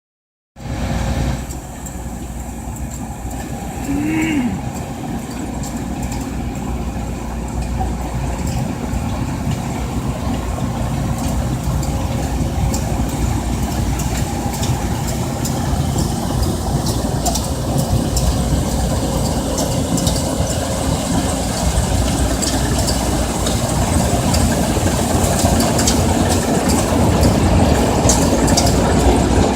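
John Deere C670 combine harvester running steadily: a deep engine drone with a constant hum, and a growing rattle from the machinery. About four seconds in, a short rising-and-falling call sounds over it.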